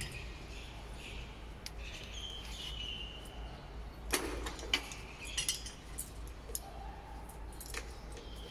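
Scattered light metallic clinks and rattles, with a few sharp clicks, from a steel extrusion die and its chain sling being handled on a die dismantling machine, over a steady low machine hum.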